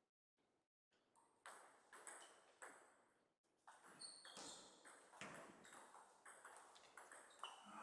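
Table tennis ball clicking: a few faint taps about half a second apart, then from about four seconds in the quicker clicks of a rally, the ball striking rackets and table.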